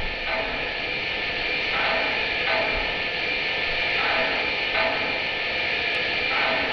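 Lionel model train running on the layout track, a steady high whir and hiss of the motor and wheels. A fainter sound breaks in and out about every two seconds.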